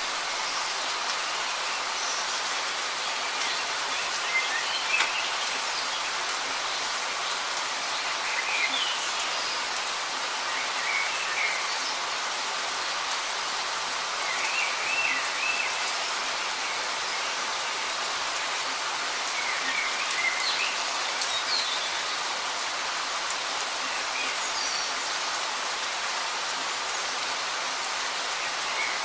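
Light rain falling steadily, a fine even patter, with short bird chirps now and then.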